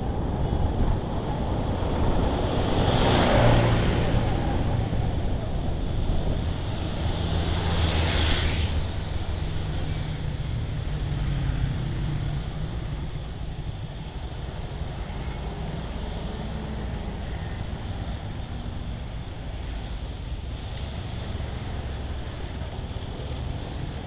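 Motorcycle riding on a wet road: the engine and wind rushing over the microphone, with a rush of noise as a vehicle passes close by about three seconds in and again about eight seconds in. The noise then settles lower and steadier as the bike slows.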